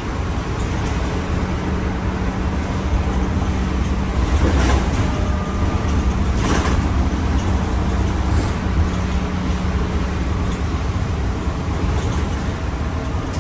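Ride noise heard inside a moving bus: a steady low engine and road rumble with a constant hum, and two brief rushes of noise about four and a half and six and a half seconds in.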